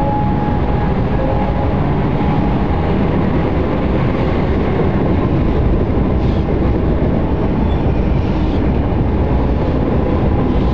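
Train in motion: a steady, loud rumble of a train running on the rails, with a faint steady whine in the first few seconds.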